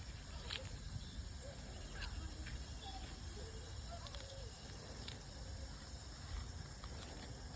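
Faint outdoor background of insects chirping steadily, with a low rumble underneath and a few faint short chirps.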